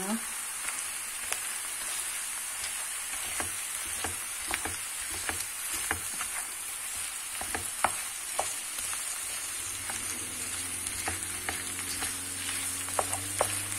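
Minced beef sizzling in a pan of onions fried in butter, with irregular scrapes and taps of a wooden spoon as the meat is broken up and stirred.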